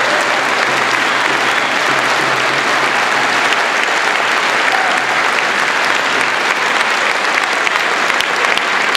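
Audience applauding steadily and densely throughout.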